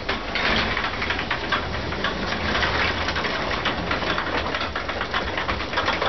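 Sectional garage door rolling up its tracks on freshly replaced extension springs: a steady mechanical rattle of rollers and drive that starts suddenly and holds at an even level.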